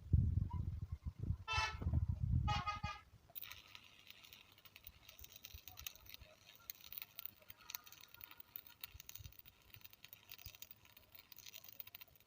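A motor vehicle running close by, giving two short horn toots about a second apart. Then the rumble drops away, leaving a faint steady hiss with light ticking.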